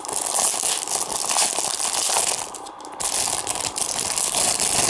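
Packaging crinkling and rustling as it is pulled open by hand, with a short lull a little past halfway.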